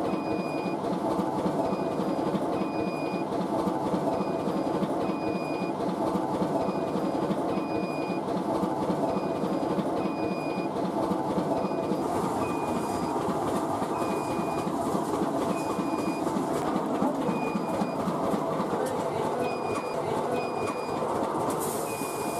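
Poha (flattened rice) making machine running with a steady rattling rumble. Short high squeaks recur about once or twice a second, unevenly spaced. Near the end comes a brief hissing rush as grain is tipped into the hopper.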